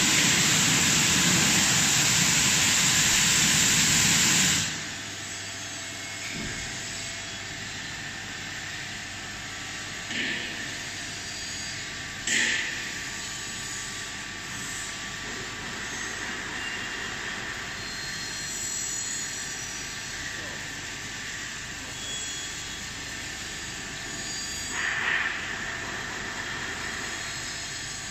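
Golden Boat T12 touchless car wash machine spraying high-pressure water with a loud hiss that cuts off sharply about four and a half seconds in. The machine then runs on with a quieter steady hum and faint whine, broken by a few short spray bursts, while the car is coated in foam.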